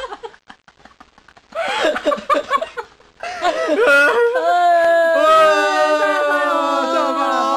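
A small group of people laughing and shrieking with delight; from about three seconds in several voices cry out together and hold long drawn-out notes.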